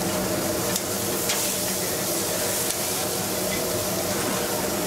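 Meat sizzling on a gas char-grill, a steady hiss over a low, steady hum, with two light clicks about a second in.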